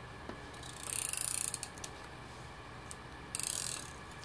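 Hand-held tape runner drawn along the edge of a paper card piece, its spool giving a fast ratcheting click-whir as it lays down adhesive. Two short strokes, about a second in and again near the end.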